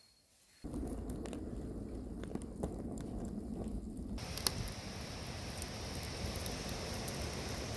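Wood fire burning, with irregular crackles and pops over a steady rushing noise; a steady hiss joins about four seconds in.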